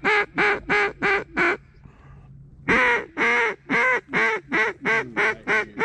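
Mallard duck call blown in a run of quacks: five quick quacks, a short pause, then a long first quack followed by about eight shorter ones, each a little softer, the cadence of a hail or greeting call to mallards overhead.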